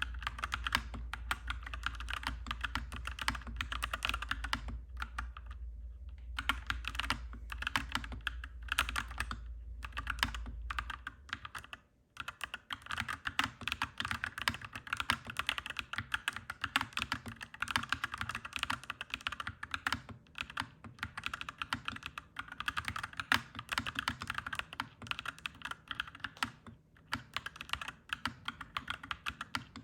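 Continuous fast typing on a clacky mechanical keyboard, a dense run of key clicks with a couple of short pauses. A steady low hum sits under the typing and stops about a third of the way through.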